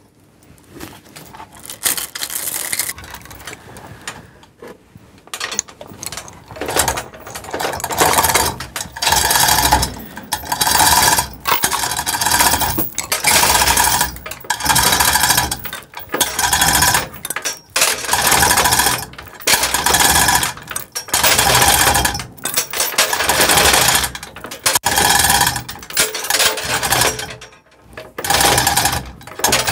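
Manual chain hoist (chain block) lowering an engine, its chain rattling through the hoist in spurts about once a second, one spurt per pull on the hand chain. It is quieter for the first few seconds.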